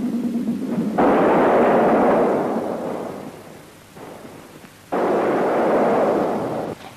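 Two explosions in a battle scene: a sudden blast about a second in that dies away over a few seconds, then a second one about five seconds in that cuts off abruptly near the end.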